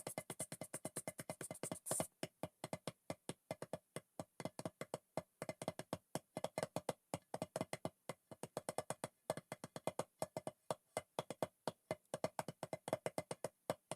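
Background music made of short, clipped percussive notes in a quick, steady rhythm, broken by a few brief pauses.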